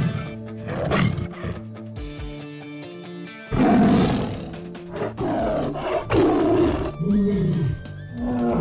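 Background music with steady held tones, overlaid with big-cat roar and growl sound effects. A loud roar comes about three and a half seconds in, followed by several shorter growls.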